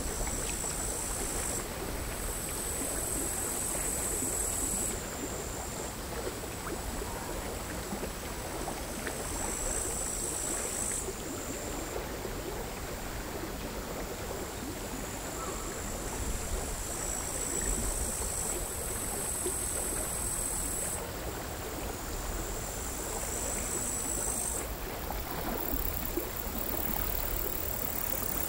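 Crickets singing high-pitched in bouts of a few seconds that start and stop, over the quiet, irregular lapping of small sea waves on a stony shore.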